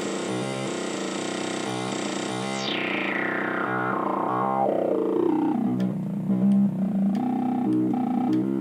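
Rolend JP-680 software synthesizer playing a repeating pulsed pattern. From about a third of the way in, its filter sweeps steadily closed, so the sound goes from bright to dark and low.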